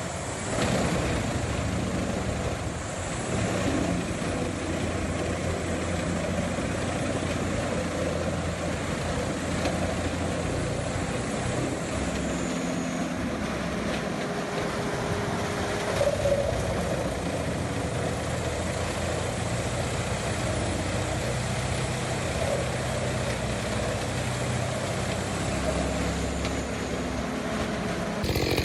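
Vermeer wood chipper running, its engine a steady drone throughout.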